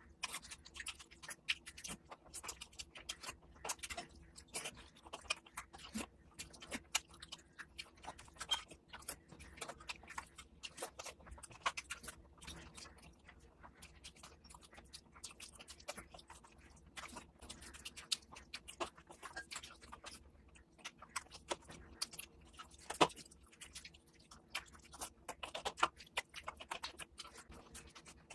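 Close-miked chewing and biting: wet, irregular mouth clicks and smacks as a person eats mutton fat curry with luchi. One sharper click stands out about 23 seconds in.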